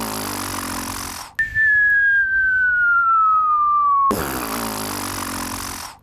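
A rough, noisy sound with a low buzzing tone under it, broken about a second and a half in by a single whistle that slides slowly down in pitch for nearly three seconds, the loudest part. The rough sound then returns.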